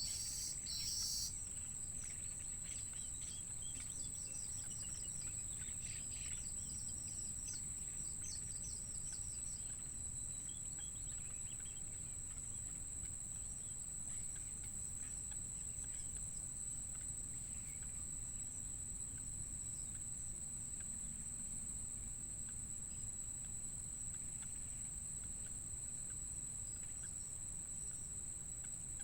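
Steady high-pitched insect drone with birds chirping in quick runs of short notes through the first ten seconds or so, loudest in the first second.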